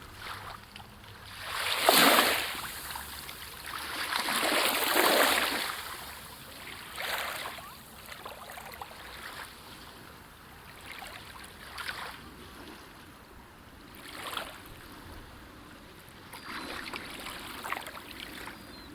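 Small waves lapping and splashing at a lake's edge, coming in uneven swells every few seconds, the loudest about two seconds in.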